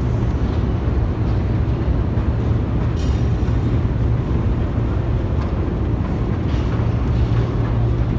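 Steady low mechanical rumble and hum of a long metro escalator running while being ridden down, with a brief click about three seconds in.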